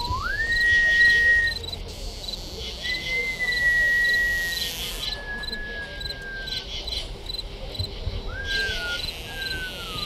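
A thin, pure whistle-like tone slides sharply up and holds high for a moment. It returns about three seconds in and sinks slowly over several seconds, then gives two short falling notes near the end. Under it, cricket chirping runs on in short repeating clusters.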